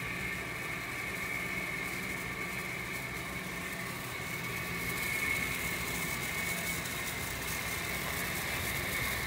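Home-made chilled-water fan coil unit running: a window-AC blower fan and a water-dispenser chiller giving a steady mechanical hum with a thin high whine over it, a little louder from about halfway.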